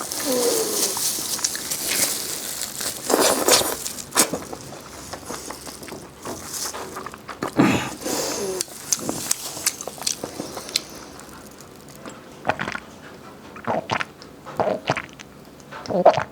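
Close-miked eating: crunchy bites and chewing, dense in the first few seconds, then sparser single crunches and mouth clicks.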